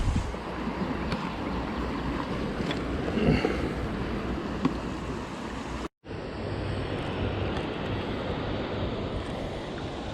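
Steady rushing of river water mixed with wind on the microphone, with a few faint clicks; the sound drops out for an instant about six seconds in and then resumes much the same.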